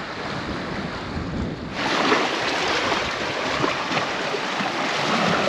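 Sea waves washing and surging among rocks. About two seconds in, the sound turns suddenly louder and brighter, with water rushing and splashing close by.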